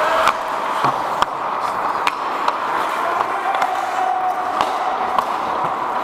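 Ice hockey skates gliding and scraping on the ice during play, with sharp clacks of sticks and puck scattered through.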